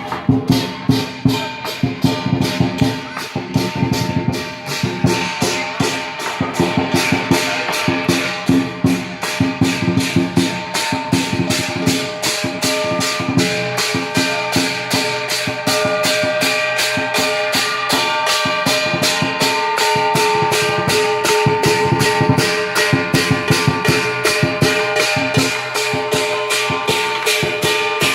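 Chinese New Year dance percussion: a drum and clashing cymbals beating a fast, steady rhythm.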